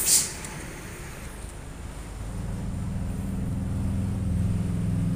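Low engine hum that swells from about two seconds in and holds steady, with a brief loud hiss right at the start.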